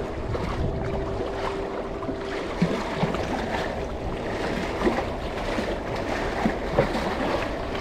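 Steady wind and sea noise on the microphone at the water's edge, with a faint steady hum that fades out about two and a half seconds in and a few short soft knocks.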